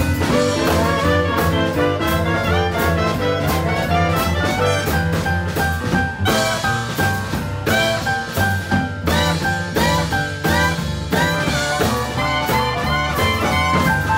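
Live jazz band playing a boogie-woogie tune: trumpet and clarinet over a digital stage piano's repeating left-hand bass line.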